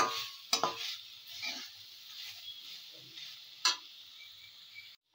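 Slotted metal spatula stirring and scraping radish pieces against a metal kadai while they fry in mustard oil with a steady sizzle. A few sharp scrapes of the spatula on the pan stand out, at the start and near the end, and the sound cuts off abruptly just before the end.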